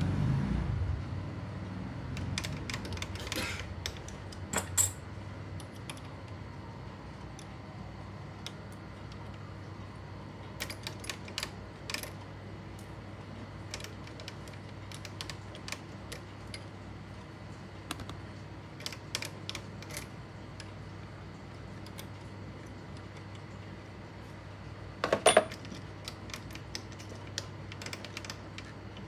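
Metal lathe cutting a small worm thread on a steel rod: the lathe's low running sound dies away about a second in, leaving a steady low hum and scattered light metallic clicks and ticks, with a louder cluster of clicks near the end.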